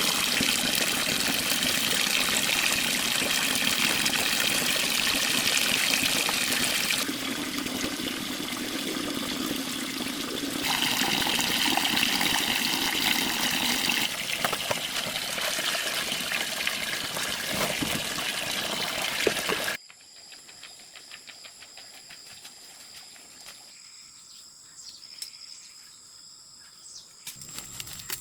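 Water running or pouring, in several abruptly cut stretches. About two-thirds of the way in it stops suddenly, leaving a much quieter background with faint ticks.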